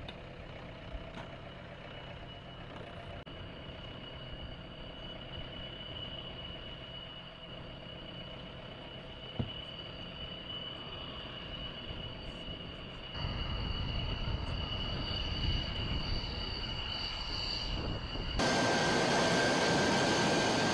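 Steady whine of jet aircraft on the ground: two high steady tones over a low rumble. It grows louder in two steps, about 13 and 18 seconds in.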